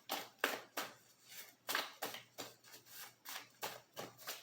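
Tarot cards being shuffled by hand: a steady run of short papery swishes, about three to four a second.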